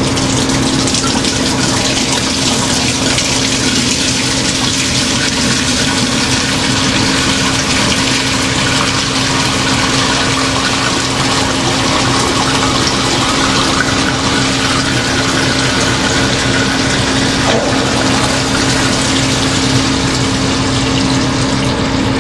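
Used frying oil gushing steadily from a metal hose nozzle into the stainless-steel tank of an ACE Fryrite fryer oil filter machine, splashing as the tank fills, over a constant low motor hum.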